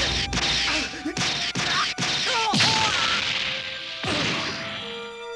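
Animated-fight sound effects: a rapid series of sharp hits and smashes over the first three seconds, then a loud whoosh about four seconds in. Music comes in near the end.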